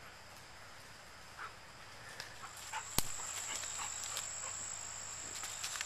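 Footsteps crunching and crackling through dry leaf litter and twigs in a quiet wood, growing busier after a second or so, with one sharp snap about three seconds in. A steady high-pitched whine comes in about halfway and holds.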